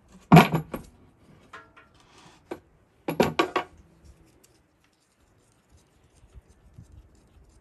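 Steel hand tools and puller parts clinking and clattering against each other and the cast iron engine block, as the valve-guide puller nut is backed off after the bolt has bottomed out. Two short bursts of clinks, about half a second in and again around three seconds in.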